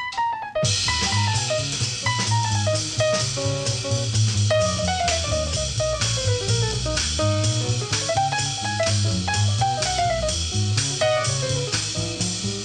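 Jazz band playing, with a drum kit keeping a steady beat under a melody line that slides up and down. The music comes in about half a second in, after a brief break.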